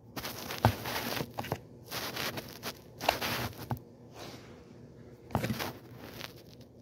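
A phone being handled and set down on the carpet close to its own microphone: bursts of rubbing and scraping, with three sharp knocks.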